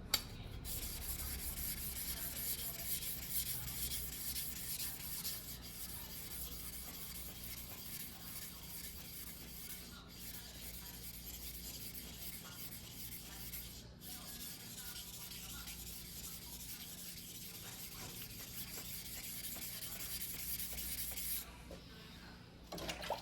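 Steel blade of a single-bevel yanagiba sashimi knife being rubbed back and forth by hand on a wet whetstone, a continuous gritty hiss. It breaks off briefly twice and stops shortly before the end.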